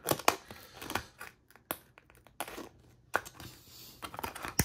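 Scissors snipping through thin aluminium sheet from an unrolled beer can, with the sheet crinkling; a few sharp separate snips with a crackle between them.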